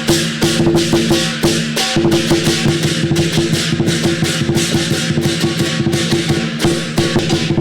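Upbeat music with a busy percussion beat, woodblock-like clicks and drums over a steady bass line.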